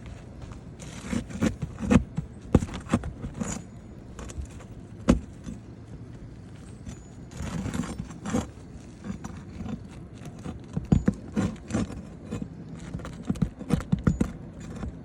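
Hand tools working roofing nails loose from under asphalt shingles: irregular metal clinks and knocks, with two stretches of scraping, about a second in and again near the middle.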